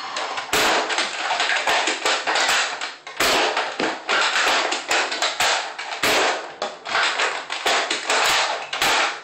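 Nerf Longshot CS-6 toy blaster being cocked and fired again and again: several sharp plastic clacks a few seconds apart, over a steady loud rustling noise.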